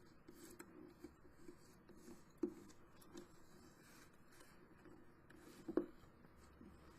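Faint handling sounds of cardstock being folded over a cover board by hand: soft rubbing with a few light taps, the clearest about two and a half seconds in and again near six seconds.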